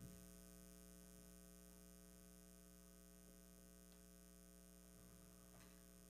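Near silence with a steady electrical mains hum, and a couple of faint ticks near the end.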